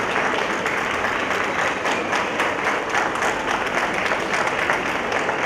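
Crowd applauding: many hands clapping at once in a steady, dense clatter.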